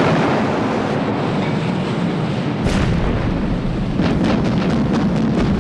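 A warship's heavy deck guns firing, with a heavy boom about two and a half seconds in, over the steady rush of rough sea and wind.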